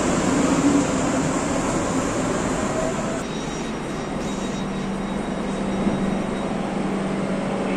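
DB S-Bahn electric multiple unit rolling along an underground platform with steady rail and running noise. About three seconds in this gives way to a steadier low hum from the train standing at the platform.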